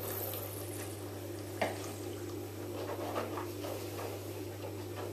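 Red wine sipped from a wine glass with a short airy slurp, then a sharp clink about a second and a half in as the glass is set down, followed by small wet mouth sounds as the wine is worked over the palate. A steady low hum runs underneath.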